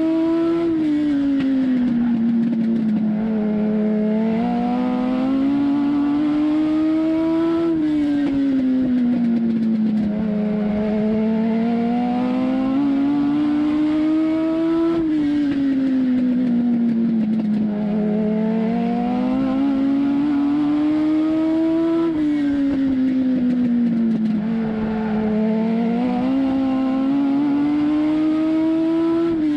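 Legend race car's Yamaha four-cylinder motorcycle engine, heard from inside the cockpit at racing speed. Its pitch climbs along each straight and drops off into each turn, a cycle of about seven seconds.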